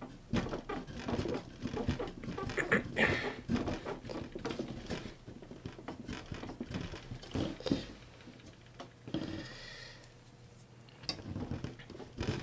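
A plastic pick scraping sticker residue off the Pioneer DJM-400 mixer's top plate: a quick run of small scratches and clicks that thins out about two-thirds through and picks up again near the end.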